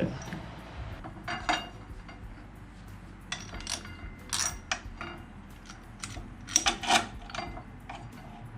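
Metal tools and parts clinking and clanking while being handled, in several short clusters of sharp knocks with pauses between.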